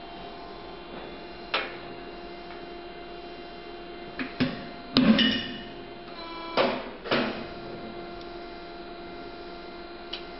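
ALFRA AP600 sheet-metal punching machine punching a hole: a steady motor hum with a series of knocks and clunks as the punch goes through the sheet, the loudest about halfway through.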